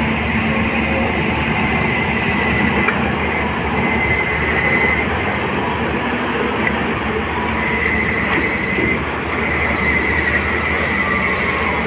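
Long-reach excavator's diesel engine running steadily under load, with a high whine that comes and goes several times as the boom swings and digs.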